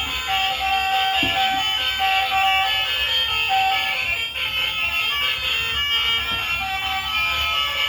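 A melody of steady electronic tones that switch on and off and change pitch.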